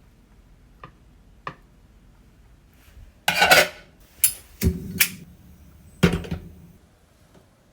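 Metal cookware being handled. Two light clicks are followed, about three seconds in, by a run of loud clatters and knocks: one longer rattling clatter, then several sharp knocks, the last about six seconds in.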